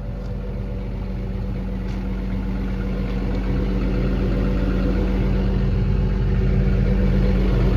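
The Cummins diesel engine of an XCMG XE210CU hydraulic excavator idling steadily, growing gradually louder.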